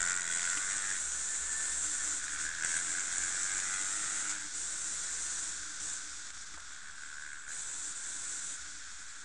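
Enduro dirt bikes riding along a dirt trail, the engine and wind heard as a steady, harsh hiss through a small onboard camera microphone; it eases a little about halfway through.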